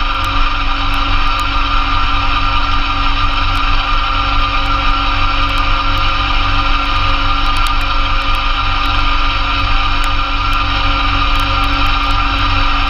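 A 2004 Massey Ferguson GC2300 compact tractor's diesel engine running steadily at an even speed, driving a PTO-powered Blizzard B48 snowblower.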